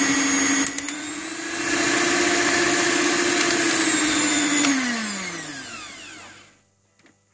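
Electric hand mixer running with its beaters whisking eggs and sugar in a plastic bowl. It keeps a steady motor whine that dips briefly under a second in, then is switched off and winds down over about two seconds with falling pitch. A few faint clicks follow.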